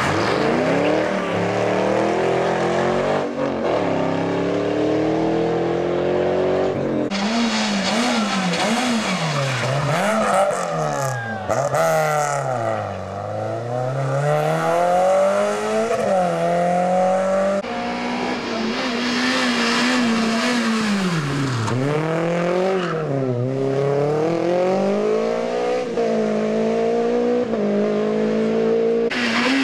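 Rally cars driven hard one after another through a tight tarmac hairpin, a Ford Mustang first and then small hatchbacks. Each engine's note drops under braking and downshifts, then climbs as the car accelerates away, so the pitch swings down and up many times.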